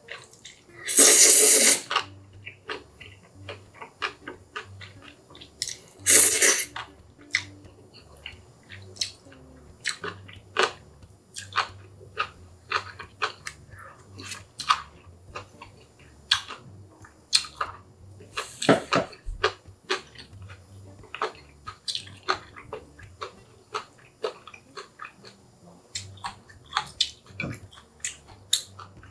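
Chapagetti black-bean noodles being slurped loudly from chopsticks, in two long slurps about a second and six seconds in and a shorter one later. Between the slurps come wet chewing and lip-smacking clicks.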